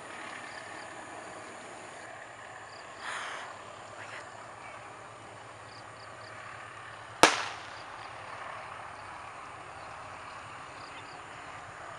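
Open-air background noise with faint short chirps, and a single sharp bang about seven seconds in that rings away briefly.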